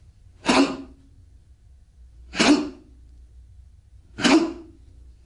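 Three sharp, forceful exhalations about two seconds apart, each a short explosive puff of breath with a little voice in it, pushed out with each fajin power strike of Chen-style taijiquan.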